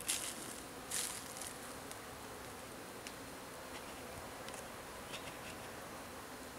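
Honey bees buzzing in a steady hum around an open hive during a nuc installation, with two brief hissing noises in the first second or so.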